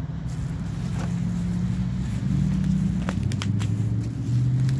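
Plastic packaging and bubble wrap crinkling in the hands as a package is unwrapped, with a few sharp crackles about three seconds in and again near the end. Under it runs a steady low motor hum that shifts pitch slightly.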